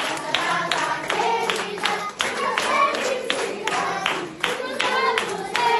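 A group of people singing together while clapping along in a steady rhythm, as for a birthday song.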